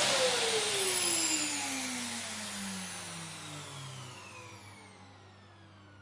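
Vacuum cleaner motor winding down after being switched off. Its whine falls steadily in pitch and the rushing air fades away over several seconds.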